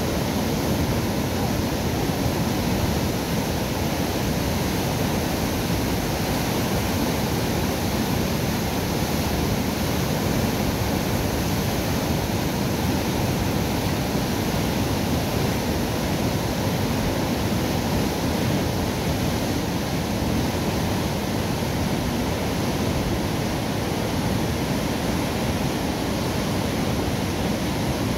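Water rushing steadily through the sluices of a river lock's steel mitre gates as the lock chamber empties, churning white below the gates; a loud, even roar of water without a break.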